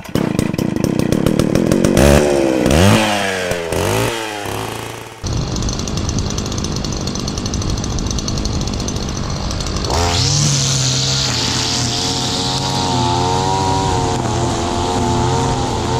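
Small petrol garden-machine engines. A two-stroke line trimmer engine is revved up and down several times in the first few seconds. It changes abruptly to a steady engine run, and about ten seconds in another engine note starts and holds a steady pitch.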